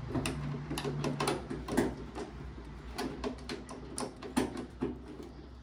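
Washing machine's plastic front panel clicking and knocking as it is pulled and worked loose by hand: a string of irregular short clicks and taps, a few of them sharper knocks.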